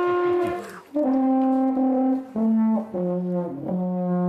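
Telescopic carbon-fibre alphorn being blown. A long held note ends, then after a brief break a short phrase of notes steps down in pitch to a long, low held note.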